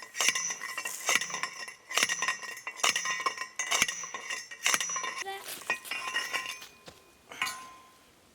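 Steel sand-point well pipe being driven into the ground by hand: sharp metal-on-metal blows about once a second, each leaving the pipe ringing, growing fainter in the last few seconds.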